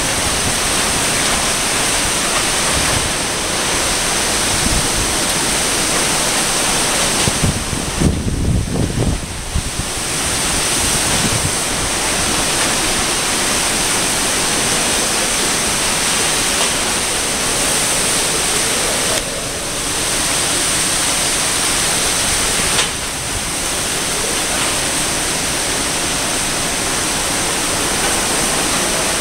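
Typhoon Haiyan's wind and heavy rain, a loud, steady rush of noise. Around eight seconds in, gusts buffet the microphone in low thumps for a couple of seconds.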